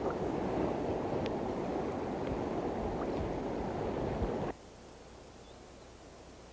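Flowing stream water around a wading angler: a steady rushing with a few faint ticks. It cuts off suddenly about four and a half seconds in, leaving only a faint hiss.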